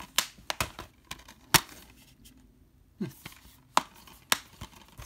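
Clear plastic Blu-ray case being handled: a string of sharp plastic clicks and taps, about nine in all, the loudest about one and a half seconds in, with a short pause in the middle.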